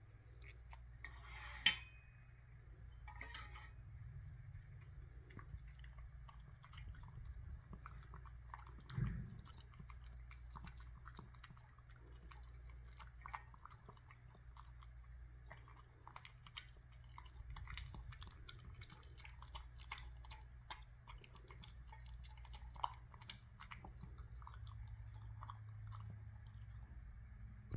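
A small dog chewing fruit salad from a ceramic bowl: faint, wet munching with many small irregular crunches and clicks. There is a sharp click about two seconds in and a duller thump around nine seconds.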